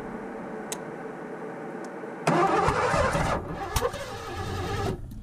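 A 1984 Ford LTD Crown Victoria's V8 cranking on the starter, then catching about two seconds in and running roughly for a few seconds before dying near the end. It is firing on gasoline poured into the central fuel injection throttle body, because the engine will not start on its own fuel delivery.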